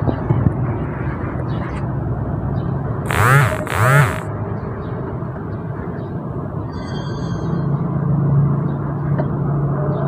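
Two short bursts of a power tool spinning up and back down, about three and four seconds in, over a steady workshop rumble; a low steady hum joins near the end.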